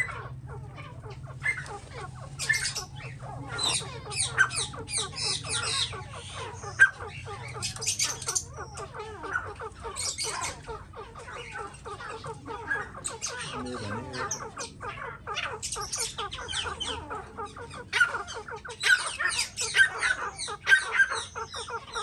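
Birds squawking: many short, harsh calls in quick bursts, busiest and loudest near the end.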